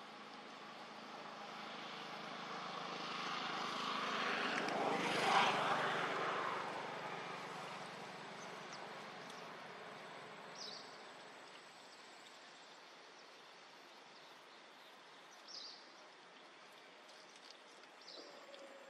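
A distant motor passes by, swelling to its loudest about five seconds in and then fading away over several seconds.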